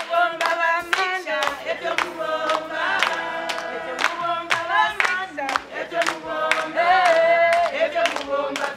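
A group of women singing together, with hand-clapping keeping a steady beat.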